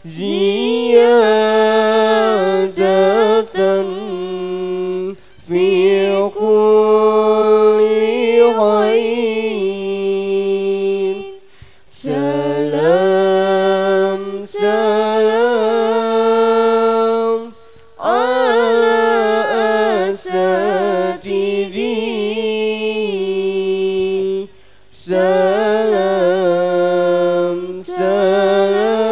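A girl's solo voice chanting melodically in Arabic through a microphone and PA, unaccompanied. She holds long, ornamented notes in phrases of about five or six seconds, with short breaks for breath between them.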